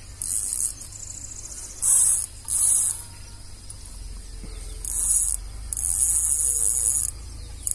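Spinning fishing reel on a carp rod running in five short, loud bursts of high hiss, irregularly spaced.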